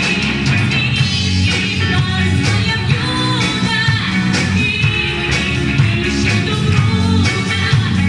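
Music: an upbeat rock-style song with guitar and a singing voice, playing loud and steady.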